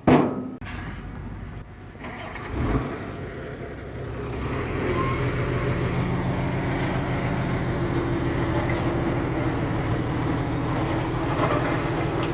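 Diesel engine of heavy earthmoving equipment running steadily, with a sharp knock at the start and a dull thump just under three seconds in.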